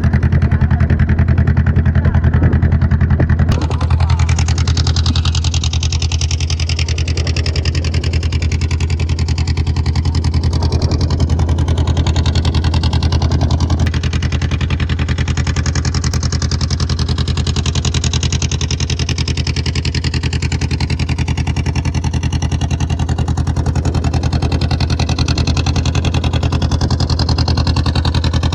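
Motorboat engine running at a steady speed: an even, low drone with hiss above it. The sound shifts abruptly a few seconds in and again about halfway through.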